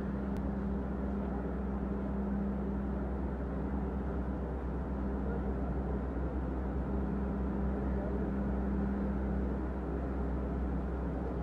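A vehicle engine running steadily, a constant low drone over an even wash of outdoor noise.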